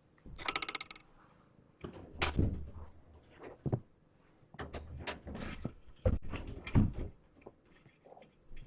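A room door being handled: a fast rattling run of clicks, then a string of knocks and bumps, with two heavy thumps a little after the middle.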